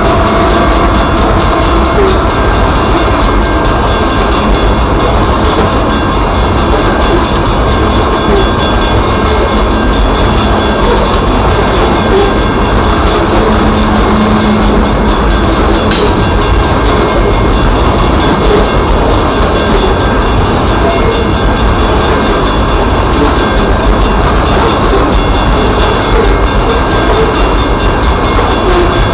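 A Union Pacific coal train's string of hopper cars rolling past at a grade crossing: a loud, steady rumble of steel wheels on the rails that does not let up.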